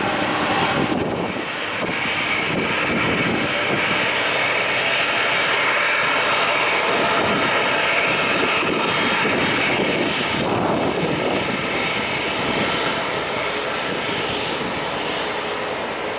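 Jet airliner engines running with a steady rushing whine, growing slightly quieter near the end.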